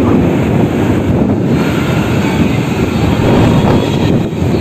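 Loud, steady road and traffic rumble with wind buffeting the microphone, as heard while riding along a street.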